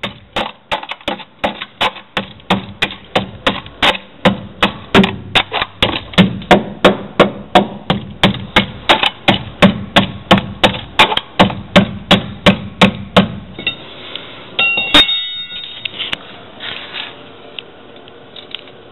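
Steady hammer blows, about three a second, that stop a little past two-thirds of the way through. They are followed by a single sharp clank with a brief ringing tone.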